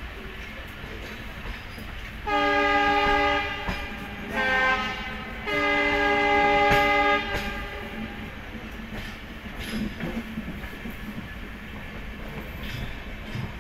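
Train horn sounding three blasts: a long one, a short one at a slightly different pitch, then a longer one. They sound over the steady rumble and clickety-clack of a moving passenger train's wheels on the rails.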